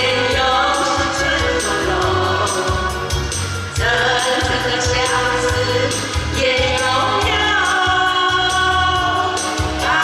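Two women singing a duet into handheld microphones over amplified backing music with a steady bass beat.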